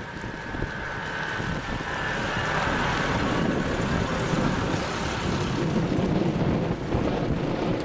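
IFA W50 fire truck's diesel engine driving past close by, getting louder as it comes up and passes, with wind buffeting the microphone.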